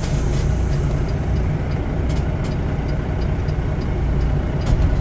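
Semi truck's diesel engine running steadily, heard from inside the cab as the tractor-trailer rolls slowly, with a few light clicks.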